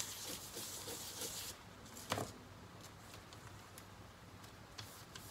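Toothbrush bristles scraping with an even hiss, spattering watercolor paint, stopping about a second and a half in. About two seconds in there is one sharp knock, followed by faint ticks and light crinkling of a plastic bag being handled.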